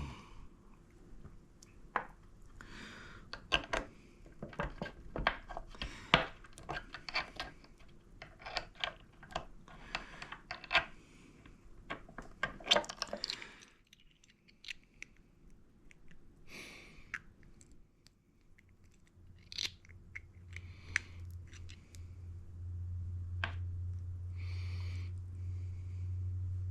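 Scattered small clicks, taps and scrapes of ratchet parts being handled as a 1/4-inch ratchet's mechanism is greased. A steady low hum comes in about two-thirds of the way through.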